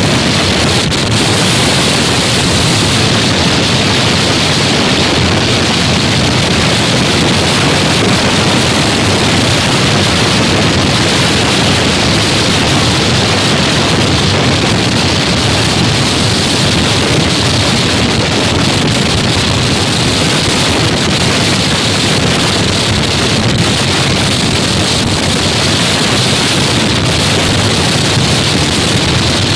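Strong winter monsoon wind buffeting the microphone in a loud, steady rush, over the wash of heavy seas breaking along a container ship's hull.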